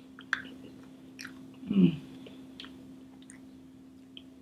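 Close-miked chewing and wet mouth clicks of someone eating spoonfuls of banana pudding. A short hum falling in pitch comes about two seconds in.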